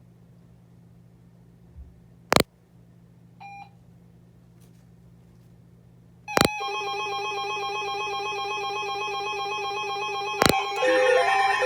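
Emergency Alert System warning tones: a few sharp clicks and a short beep, then about six seconds in a loud, steady electronic alert tone starts. Near the end a lower beep pulsing on and off joins it.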